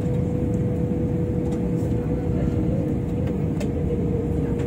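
Steady cabin noise of an Airbus A350-1000 moving slowly on the ground: a low rumble with a steady mid-pitched whine, and a faint click about three and a half seconds in.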